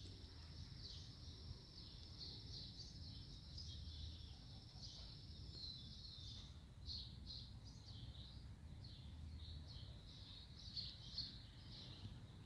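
Faint birdsong: quick, high chirps from songbirds, packed into a near-continuous twittering until about six seconds in, then coming as separate chirps, over a low outdoor rumble.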